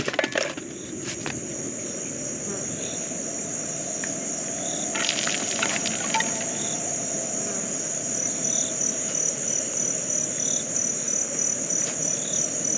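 Crickets trilling steadily and high-pitched over a low, even bed of background noise, with a few faint clicks around five to six seconds in.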